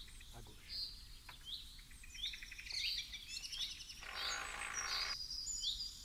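Songbirds calling: repeated short rising chirps, then quicker trills, with a few faint knocks and a burst of noise lasting about a second, about four seconds in.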